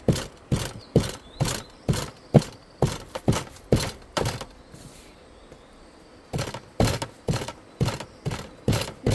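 Kitchen knife chopping garlic on a plastic cutting board: sharp knocks about two a second, stopping for about a second and a half midway, then similar knocks resume.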